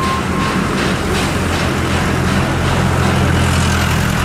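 SY-class 2-8-2 steam locomotive working a loaded coal train: exhaust beats about three a second, fading after about a second into a steady low rumble of the moving train.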